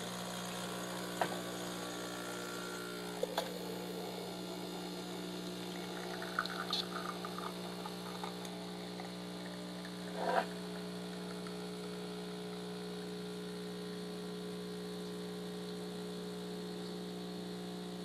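Delonghi EC155 espresso machine's vibratory pump running with a steady hum while pulling a shot of espresso, with a few small clicks and knocks over it. The hum cuts off at the very end as the shot stops.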